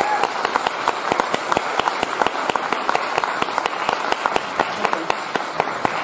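Audience applause: many people clapping steadily.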